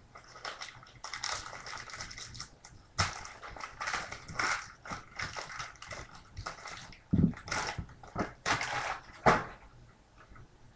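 A silvery foil trading-card pack wrapper crinkling and tearing open in someone's hands, with irregular rustling and a couple of dull knocks in the second half.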